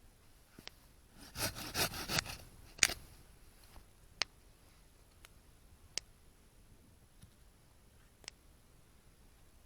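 Small wood fire burning in a compact fire stand, giving off single sharp crackling pops every second or two. A brief burst of rustling and scraping comes just after the first second.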